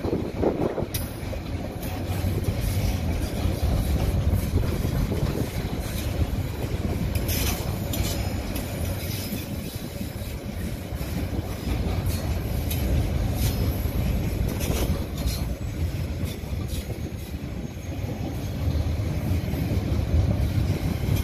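Loaded container wagons of a freight train rolling past on the rails: a steady low rumble of steel wheels on track, with a few sharp clacks.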